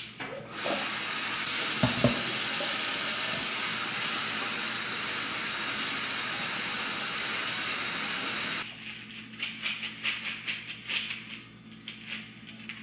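Kitchen tap running water over dried pinto beans in a plastic colander at the sink, a steady hiss that shuts off sharply about nine seconds in. After that, wet beans rattle and click in the colander as they are handled.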